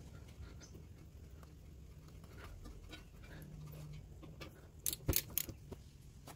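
Socket and ratchet being fitted onto a brake caliper bolt to tighten it: scattered light metallic clicks and clinks, with a few sharper clicks close together about five seconds in.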